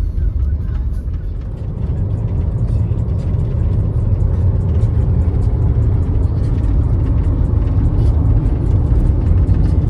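Steady low rumble of a van's engine and tyres while driving along the road.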